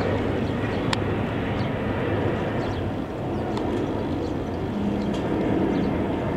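Boeing 777-300ER's twin GE90-115B turbofans give a steady low jet rumble as the airliner passes overhead on approach with its gear down. A few faint, short high-pitched chirps sound over it.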